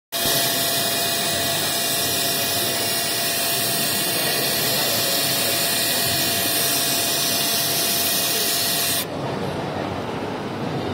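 HF-703-2 fabric tape bonding machine running with a steady, loud hiss. About nine seconds in, the hiss cuts off suddenly and a quieter running noise carries on.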